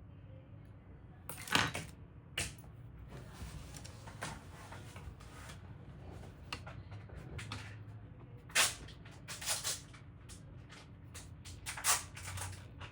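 Irregular clicks, knocks and rustling from hands working on a small computer's case and parts, with the sharpest knocks about a second and a half in, again near the middle, and near the end.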